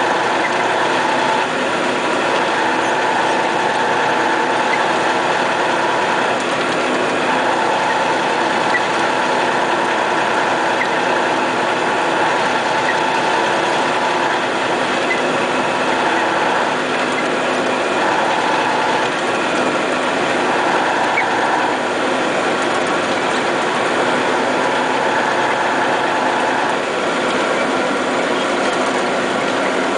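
MAZ snowplough truck heard from inside its cab while it drives: the diesel engine and drivetrain run steadily under a dense mechanical rattle, with a higher whine that drops in and out every few seconds.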